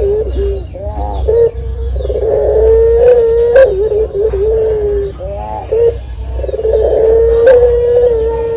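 Collared dove (puter) cooing: long drawn-out coos, each held steady for two to three seconds and dropping at the end, with short wavering notes in between. One long coo starts about two seconds in and another about seven seconds in.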